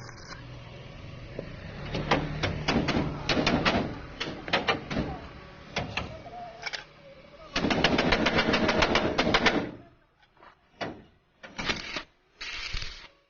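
Stick (arc) welding on a tricycle door hinge: the arc crackles and sputters in short tack bursts, then runs in one steady crackling stretch of about two seconds past the middle, followed by a few brief bursts.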